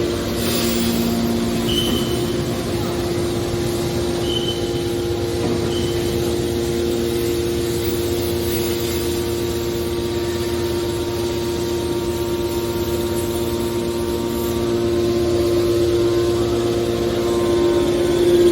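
Hydraulic scrap metal baler running: the steady hum of its electric motor and hydraulic pump, growing louder over the last few seconds, with a few short high squeaks in the first six seconds.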